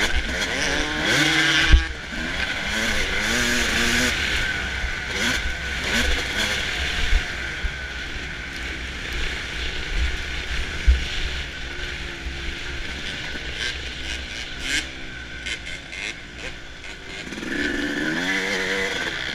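Suzuki RM250 two-stroke motocross engine revving hard, its pitch climbing and dropping repeatedly as the rider works the throttle and gears over a dirt track, heard from onboard with wind rush on the microphone. A few sharp low thumps come from the bike hitting bumps.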